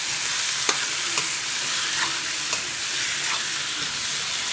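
Chicken pieces frying in hot oil in a metal wok with a steady sizzling hiss, while a metal ladle stirs them and now and then scrapes and clinks against the pan.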